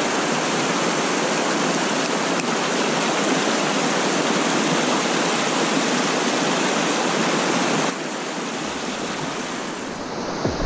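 Steady rushing of river water, turning a little quieter about eight seconds in.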